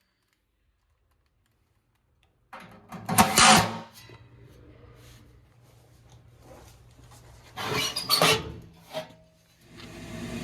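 Clattering and rubbing of parts being handled, twice, over a faint hum, after a short stretch of dead silence. Near the end a furnace motor starts and runs with a steady whir.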